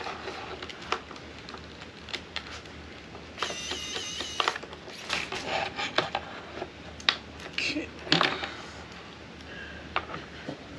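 Small metal parts and hand tools clicking and clattering on a tabletop during work on an RC crawler's servo mount, with a brief high whir about three and a half seconds in.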